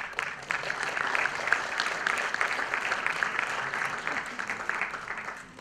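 Audience applauding: a dense burst of clapping that holds steady and dies away near the end.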